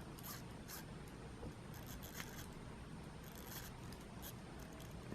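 Faint clicking and scraping of a Loreo automatic watch's crown being turned by the fingers, in a few short scattered bursts.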